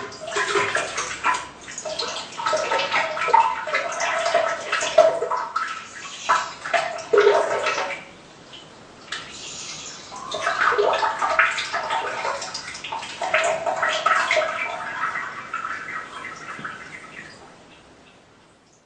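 Explosive diarrhea sound effect in two long, irregular runs with a short lull about eight seconds in, fading out near the end.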